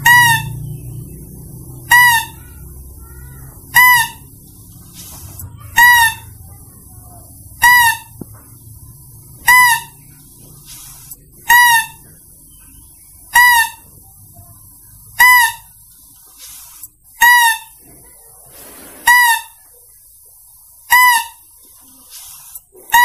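Mouse-deer lure call (suara pikat pelanduk kancil) repeating about once every two seconds, each a short high-pitched squeal that rises and falls in pitch.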